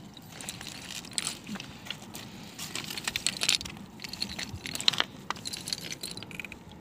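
Irregular small clicks and rustles of a nylon cast net being handled over river pebbles, with stones knocking together under the hands; one sharper click about five seconds in.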